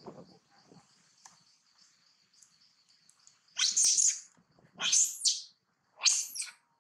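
Three loud, high-pitched monkey screams about a second apart, starting a little past halfway, each rising sharply in pitch, from long-tailed macaques.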